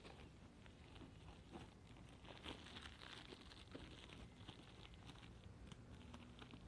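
Faint crinkling and tearing of a plastic courier mailer bag being opened by hand, with a stretch of louder rustling about two to three and a half seconds in.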